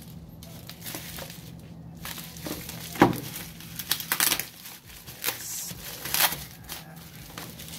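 Clear plastic wrapping crinkling and tearing as hands peel it off a cardboard product box, in irregular bursts, with a sharp knock about three seconds in.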